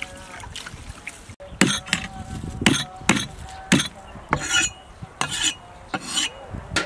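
Knife striking lemongrass stalks on a wooden chopping block: a run of sharp knocks, about eight of them, spaced roughly half a second to a second apart, starting about a second and a half in.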